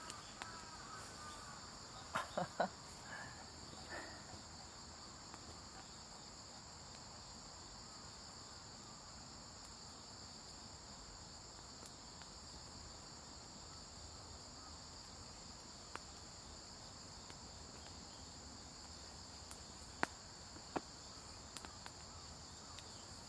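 Steady, high-pitched chorus of insects, like crickets, running unbroken. A few sharp clicks or knocks break in about two seconds in and again near the end.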